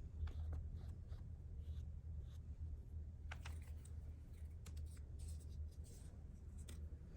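Faint paper-crafting handling at a desk: scattered soft taps, clicks and scrapes of paper and tools, over a steady low hum.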